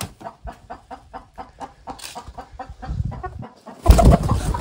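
Hen clucking in a quick, even run of short clucks, about five a second. About four seconds in there is a sudden loud flurry of wing-flapping right at the microphone.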